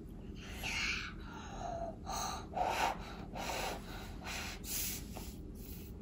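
A person's short, breathy puffs of breath, about seven in a row, each under half a second.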